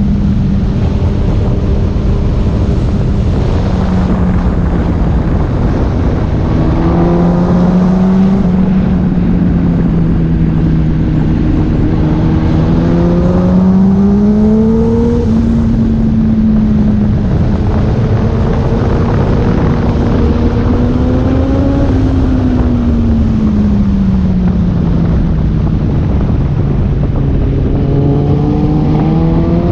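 Yamaha R1 sport motorcycle engine running at speed on track, its note slowly rising as it accelerates and falling as it slows, several times, under heavy wind rush on the helmet camera.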